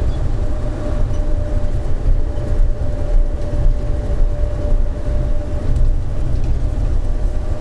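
Rubber-tyred automated people-mover train running at a steady speed, heard from inside the car: a continuous heavy low rumble with a steady whine held on one pitch.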